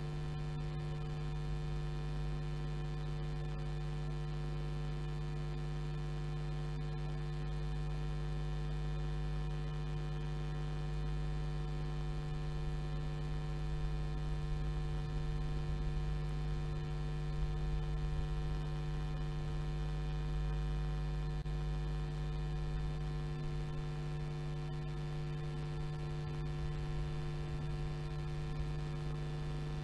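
Steady electrical mains hum: one strong low tone with fainter steady tones above it and a low rumble underneath, a little louder for a few seconds around the middle.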